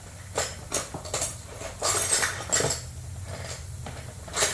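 Metal hand tools clinking and tapping on the small engine's parts, about seven sharp irregular clicks, the loudest around two seconds in, over a steady low hum.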